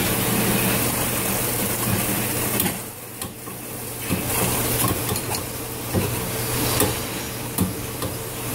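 Dunham #1 thermostatic steam trap cycling open and discharging condensate and steam from its outlet into a sink with a hissing, sputtering rush. The flow drops off suddenly about three seconds in and goes on weaker with crackling spits.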